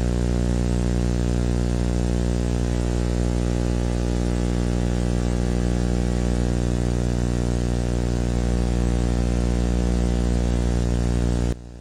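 Steady, loud electrical hum-buzz with hiss on an old tape soundtrack. It begins abruptly and cuts off suddenly near the end.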